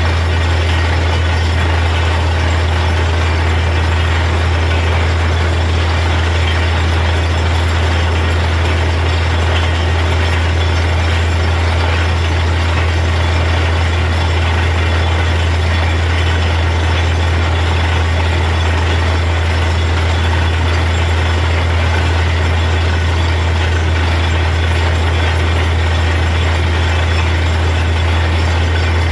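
Truck-mounted borewell drilling rig running steadily at the borehole, a loud constant low engine hum under a noisy hiss of water and cuttings being blown out of the hole. The bore has struck water.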